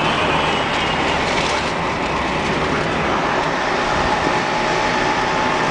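Steady rushing road and engine noise of a moving vehicle, heard from on board as it drives along.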